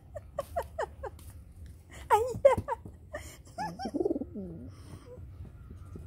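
An agitated pet pigeon cooing in a series of short, rising-and-falling calls, loudest about two seconds in, with a lower, wavering coo around four seconds in and a few light clicks.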